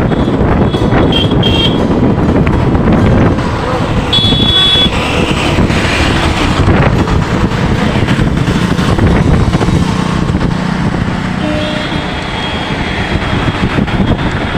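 Road traffic with wind buffeting the microphone, and a few short, high vehicle horn toots.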